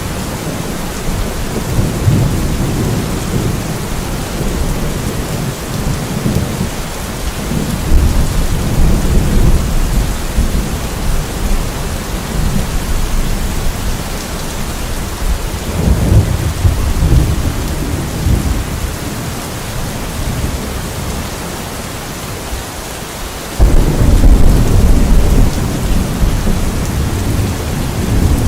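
Steady heavy rain hissing, with low thunder rumbling in slow swells every several seconds. Near the end a louder rumble begins suddenly.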